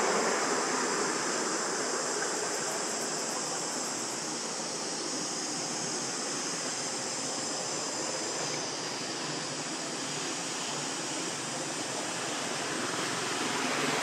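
Steady outdoor ambient hiss with no distinct calls or knocks, swelling slightly near the end.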